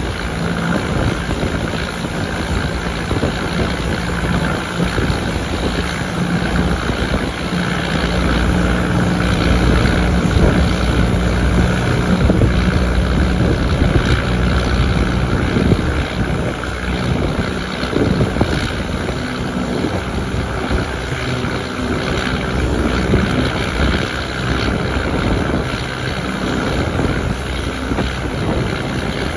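Passenger train running at speed, heard from an open carriage window: a steady rumble of the train on the rails with wind buffeting the microphone.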